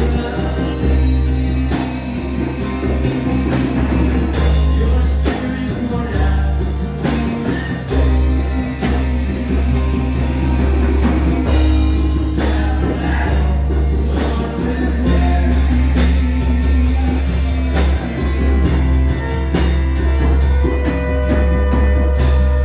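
Music with a singing voice over a strong, steady beat, playing for a group dance.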